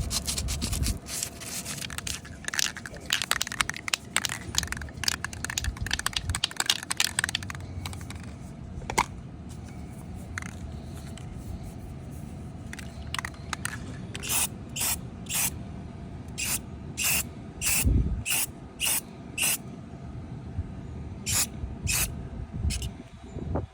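Hand sanding of the curb-rashed wheel rim in quick back-and-forth strokes for the first several seconds. Then, from about halfway, short hissing bursts of aerosol spray paint, a dozen or so in quick groups, as paint is dusted onto the repaired spot.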